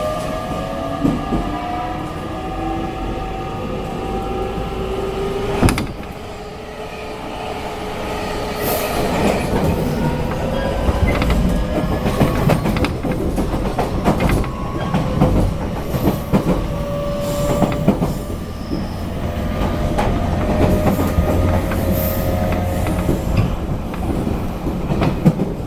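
Running noise inside a JR Kyushu 813 series electric train's motor car: the motor whine rises slowly in pitch as the train gathers speed, ends with a sharp click about six seconds in, and gives way to wheels running on the rails with repeated clicks over rail joints.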